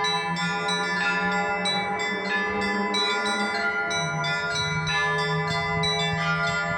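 Russian Orthodox church bells rung in a continuous peal: rapid, frequent strikes on the smaller, higher bells, with a low bell tone ringing on steadily underneath.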